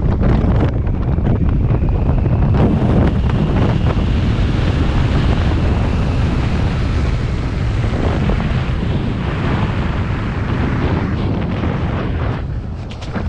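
Wind rushing over the microphone during fast movement close to the ground: a steady, loud roar that eases off near the end.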